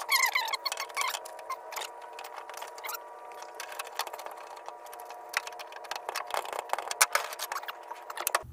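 Rapid clicks and knocks from a swivel boat seat being handled and fitted into an aluminium jon boat, over a steady hum of several tones. The sound is thin, with no low end.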